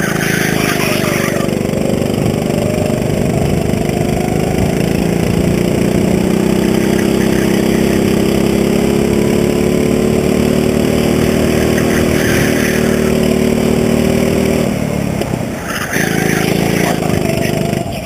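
Go-kart engine at full throttle, heard from the kart itself, its pitch climbing steadily for about fourteen seconds along a straight. About fifteen seconds in it drops sharply as the throttle comes off for a corner, then picks up again near the end.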